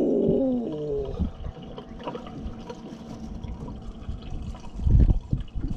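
Small water lapping and trickling against a boat hull. A drawn-out vocal exclamation falls in pitch and fades in the first second, and a brief low rumble comes near the end.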